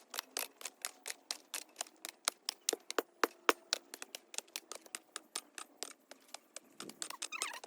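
Shovels chopping and scraping into weeds and soil: a quick, irregular run of sharp strikes, several a second.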